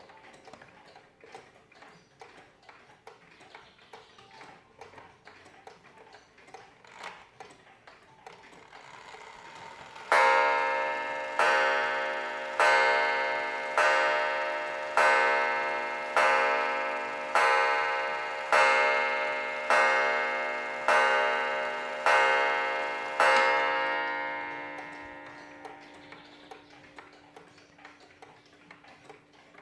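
Waterbury Gothic alarm clock ticking, then striking twelve evenly spaced ringing blows, a little over a second apart, beginning about ten seconds in. The last blow rings out and the ticking goes on.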